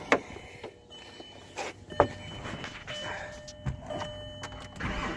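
A few sharp clicks and a thin steady electronic tone, then near the end the VR6 turbo engine starts cranking on the starter motor without firing: the hot-start fault, a warm engine that cranks but won't catch.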